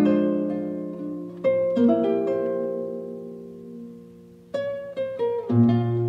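Gentle plucked-string background music. A few notes are struck and left to ring, fading slowly, then a new phrase starts about four and a half seconds in.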